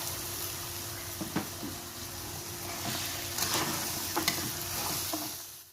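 Food frying in hot oil in a pan, with a steady sizzle. Several sharp knocks of a spatula being stirred against the pan are heard through it. The sound cuts off suddenly at the end.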